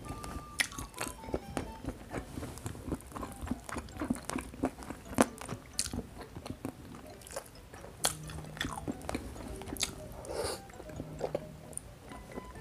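Close-miked eating: chewing and biting of rice with three-sauce braised-pot food, with many quick sharp clicks throughout, over light background music.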